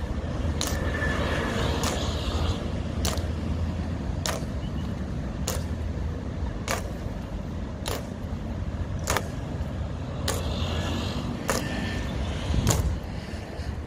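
Honor guard's boot heels striking the ground in a slow, measured march: one sharp click about every 1.2 seconds, over a steady low rumble.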